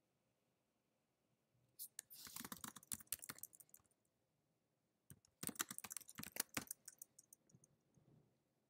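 Typing on a computer keyboard: two quick runs of keystrokes, the first about two seconds in and the second about five seconds in, then a few softer key clicks near the end.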